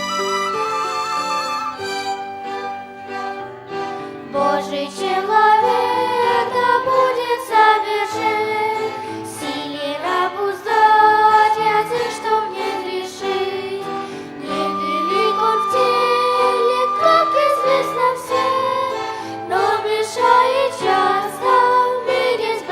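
A violin ensemble plays held notes, then voices come in about four seconds in and sing a hymn, with the violins accompanying.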